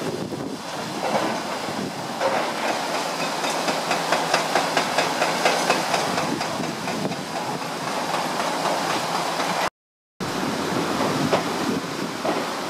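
Excavator-mounted hydraulic breaker hammering concrete rubble in rapid, regular blows, strongest a few seconds in, over the steady rush of river water. The sound drops out for about half a second near the end.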